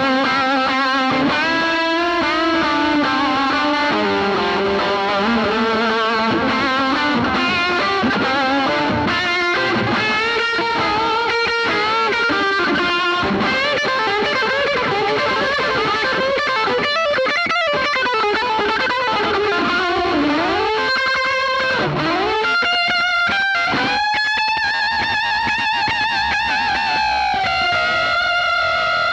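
Electric guitar played through a Donner White Tape delay pedal into a Bassman '59 tube amp, with a lightly driven tone: a run of lead notes with string bends, then a long held, bent note with vibrato near the end.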